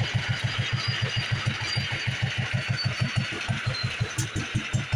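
International Harvester 3–5 hp Type LA single-cylinder engine running steadily, its exhaust beating about seven to eight times a second, while it drives a lineshaft and belts.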